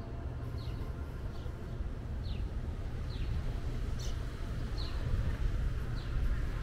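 A bird repeating a short, high, downward-sliding call about once a second, over a steady low rumble of street traffic.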